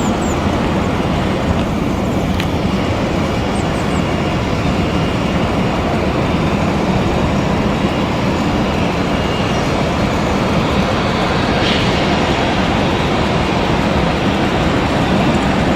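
Steady rumbling roar of jet airliner engines, growing slightly louder in the second half.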